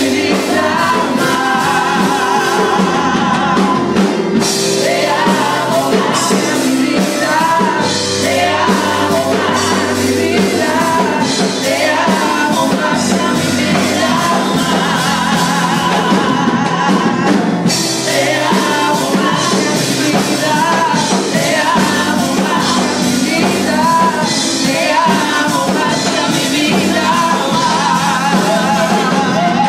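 Live band music: a woman singing into an amplified microphone, her voice wavering and sustained, with a drum kit and cymbals playing along.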